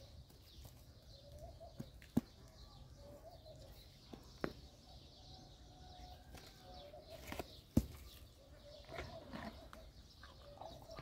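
A horse biting and chewing firm green fruit pulled from a branch held to its mouth. Sharp crunches come a few seconds apart, the loudest about two, four and a half and eight seconds in, with quieter chewing between.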